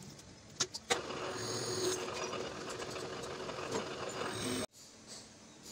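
Drill press boring a twist drill into a steel angle piece held in a machine vise: two sharp clicks, then from about a second in a steady grinding cutting noise over a faint hum, which cuts off suddenly near the end.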